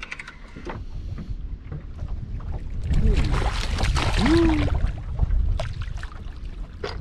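Hooked fish thrashing and splashing at the water surface, loudest for a couple of seconds from about three seconds in. Wind buffets the microphone throughout.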